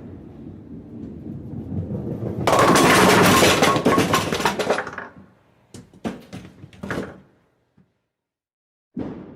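A bowling ball rolling down the lane, then hitting the pins about two and a half seconds in: a loud crash of pins that dies away over a couple of seconds, with a few last pins clattering on their own afterwards. A new rolling rumble starts just before the end.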